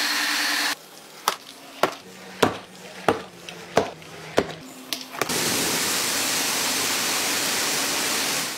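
Pressure washer spray hissing steadily against a car's bodywork, cutting off under a second in. About seven sharp strokes follow, roughly one every half second to second, as the wet window glass is wiped by hand. The spray starts again about five seconds in and runs steadily.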